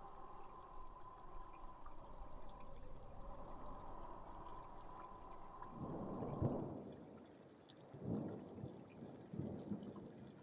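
Steady rain with light rumbles of thunder: a rumble swells about six seconds in, followed by two smaller ones.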